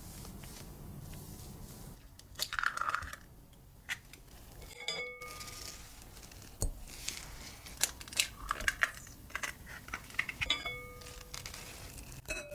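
Close-miked kitchen handling sounds. Near the start, a soft tearing crackle of fluffy sponge cake being pulled apart. Then eggs are separated with a coiled wire egg separator: sharp crackles and clicks of eggshell and wet yolk handling, and three short ringing clinks of the metal separator against the glass bowl.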